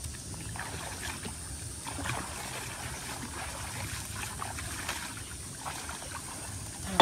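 Shallow pond water splashing and trickling lightly as people crouch in it and move their hands through the water, with small irregular splashes over a steady background hiss.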